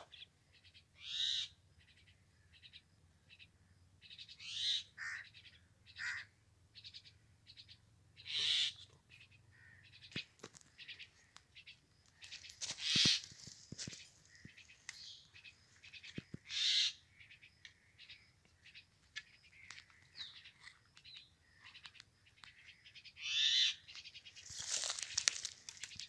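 Birds calling outdoors: short, high calls and chirps repeated every few seconds, with a few faint clicks in between.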